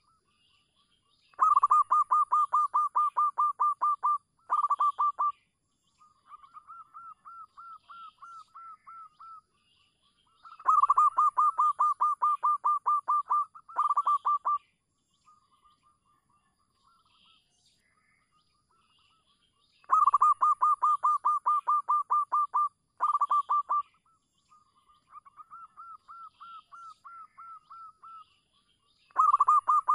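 Zebra dove cooing: a loud, rapid series of short staccato notes lasting about three seconds, a brief second burst, then a softer series of notes. The phrase repeats about every nine seconds, three times, and starts again at the very end.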